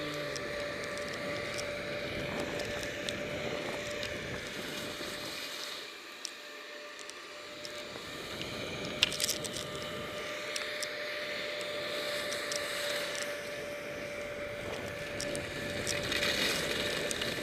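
Skis sliding over snow with wind rushing past the camera's microphone. About six seconds in the sound dulls for a couple of seconds, with a single sharp knock a few seconds later.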